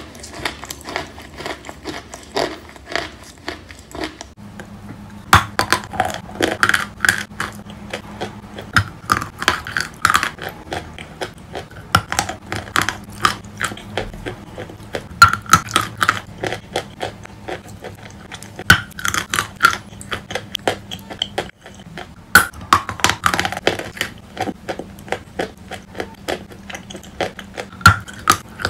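Wet chalk coated in chalk paste being bitten and chewed: dense runs of crisp crackling crunches, with a loud bite every couple of seconds.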